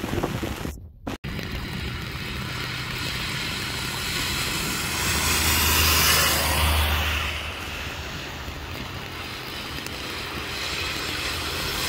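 Steady rain noise, with a pickup truck driving past on the wet road: its engine rumble and tyre spray swell up about five seconds in and fade out over about two seconds. The sound briefly cuts out about a second in.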